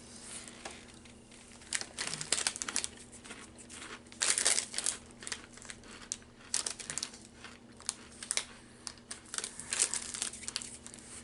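Small plastic snack bag crinkling as it is handled, in irregular bursts of rustling.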